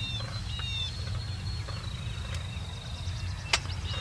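Songbirds chirping and whistling in short repeated phrases, one holding a long trilled note from about two seconds in, over a steady low rumble. A single sharp click near the end.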